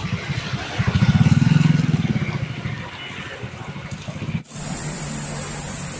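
A motor vehicle engine passes close by, swelling loud about a second in and then fading. The sound cuts off abruptly after about four and a half seconds and gives way to a steadier hum.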